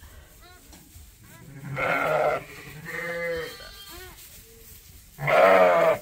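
Suffolk sheep bleating. Several deep calls come at intervals, the loudest near the end, with fainter, higher calls between them.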